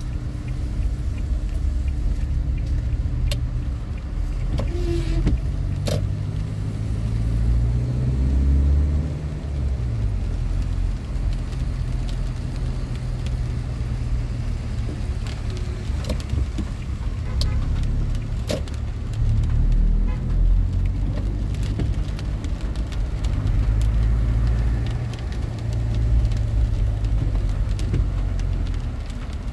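Car engine and road rumble heard from inside the cabin while driving in slow traffic on wet roads. The low engine note shifts up and down, rising briefly about eight seconds in, with scattered sharp ticks.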